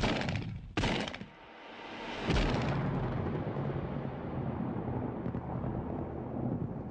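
Two sharp gunshot-like blasts less than a second apart, then a deep boom a little over two seconds in that rolls on as a long, slowly fading rumble.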